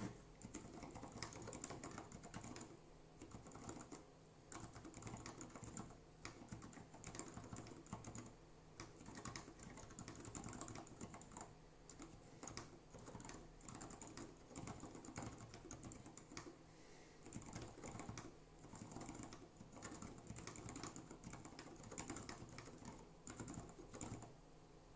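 Typing on a Dactyl Manuform Mini split mechanical keyboard with a 3D-printed wood-PLA case and lubed Aliaz switches on 35 g springs: a quiet, continuous run of keystroke clicks at an irregular typing rhythm, with a few brief pauses.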